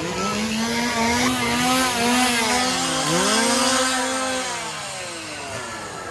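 Chainsaw revving: the engine is held at a steady pitch for about four seconds, then drops away, while other revs swoop up and down around it.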